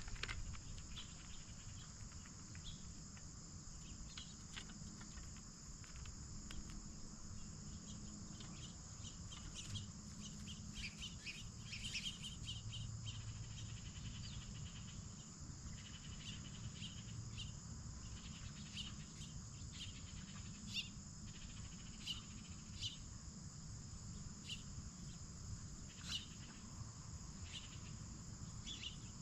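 Steady chorus of crickets and other insects, with scattered short clicks and chirps over it.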